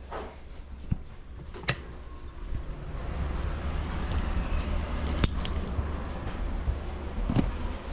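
A few sharp metallic clinks and knocks over a low, steady rumble that grows louder about two and a half seconds in.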